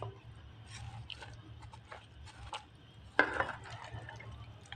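A wooden spoon stirring and scraping raw mutton pieces with chopped onion, tomato, spices and water in a clay pot, with soft scrapes and knocks, louder about three seconds in.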